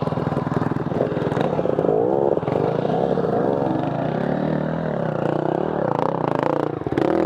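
Dirt bike engines running, with a steady engine drone under revs that rise and fall in pitch about two and three and a half seconds in.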